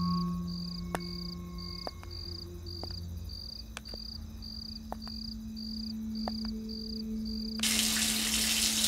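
Crickets chirping in an even rhythm, a little under two chirps a second, over low held music notes. Near the end a shower starts running, a loud steady hiss of water.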